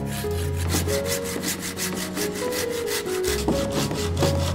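Hand saw cutting through a log, in fast, even back-and-forth strokes.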